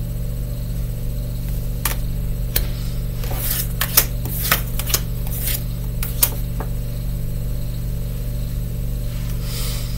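Steady low electrical hum, with a scatter of short clicks and taps between about two and seven seconds in as tarot cards are handled.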